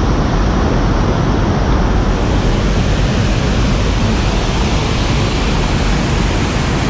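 Loud, steady rushing of a river waterfall close by.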